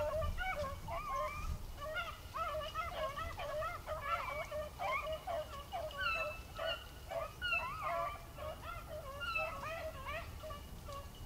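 A pack of beagles baying on a rabbit's track: many short, overlapping hound calls in a steady chorus.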